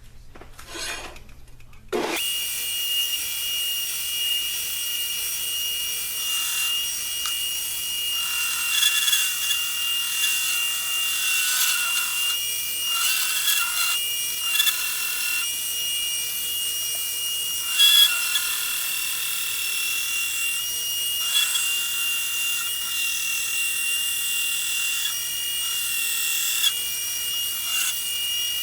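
Power sander switching on about two seconds in and running with a steady high whine, as a steel knife blank cut from a chainsaw bar is ground against it; the grinding rasp swells and eases as the blade is pressed on and lifted off.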